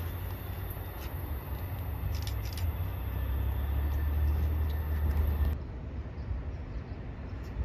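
Low rumble of a distant train, swelling a little, with a faint steady high whine over it; it cuts off suddenly about five and a half seconds in, leaving a quieter low hum.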